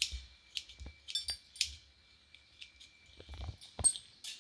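Scissors snipping coriander over a steel pan and a steel spoon clinking against the pan: a scatter of short clicks and metallic clinks, some with a brief ring, the loudest near the end.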